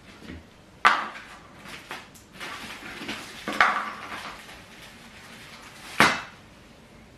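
Knocking and clattering as chair parts and fittings are handled during chair assembly. There are three sharp knocks, about one, three and a half, and six seconds in, with shuffling handling noise between them.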